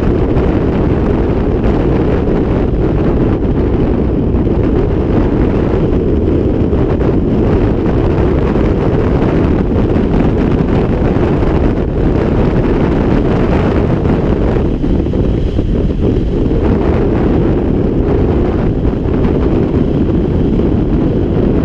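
Loud, steady wind rush on the microphone from the airflow of a paraglider in flight, mostly low and rumbling.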